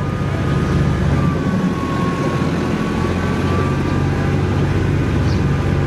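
A steady low machine hum, as of a motor or engine running, with a faint thin whine above it that dips slightly about two seconds in.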